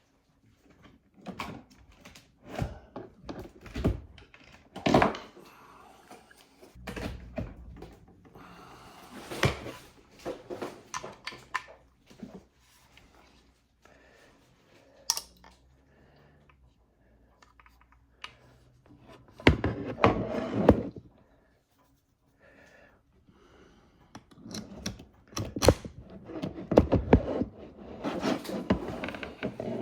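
Handling noise: irregular clicks, knocks and thunks of cables and gear being moved about and plugged in, in bunches with quiet gaps between, busiest near the end.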